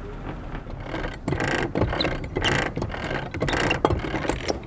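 Anchor chain being hauled up over the bow roller by the windlass, the links clanking in an uneven run of metallic strokes that starts about a second in.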